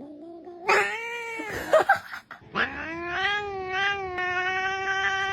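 A cat yowling in drawn-out calls: a short rising one at the start, a louder one about a second in, then one long, steady, held yowl from about two and a half seconds in.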